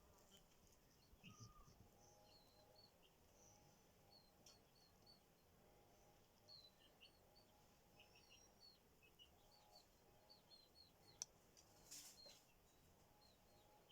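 Faint birdsong: small birds giving short, high chirps scattered throughout, over a low background hiss. A sharp click about eleven seconds in and a brief rustle just after.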